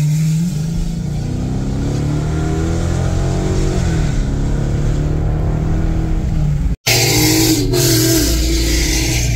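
Hemi V8 muscle-car engines accelerating on the road, heard from inside a car's cabin, the engine note rising in pitch as they pull. The sound cuts out for an instant about seven seconds in, then another rise follows.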